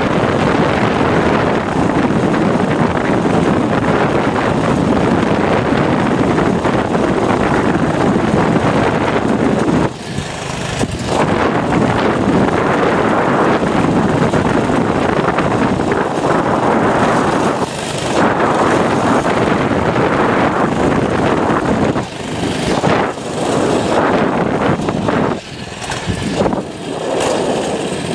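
Baja mini bike's small engine running at speed, mixed with wind rushing over the helmet camera's microphone. The level dips briefly about ten seconds in and several times near the end.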